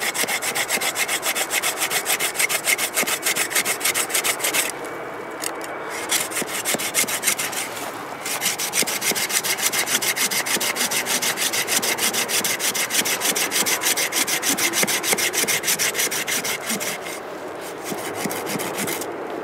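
Gardenic folding pruning saw cutting through a thick tree root by hand with quick back-and-forth strokes. It pauses briefly about five seconds in and again around eight seconds, then stops a couple of seconds before the end.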